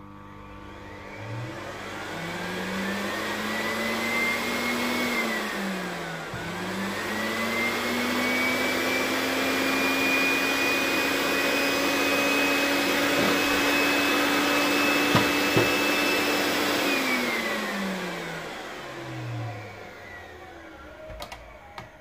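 Bosch Powermax 1700 W vacuum cleaner's motor and fan run on test with the cover off, after a motor repair with a new commutator and carbon brushes. It spins up with a rising whine, drops sharply and picks up again about six seconds in, and holds a steady high whine. Two sharp clicks come during the steady run, and it winds down near the end.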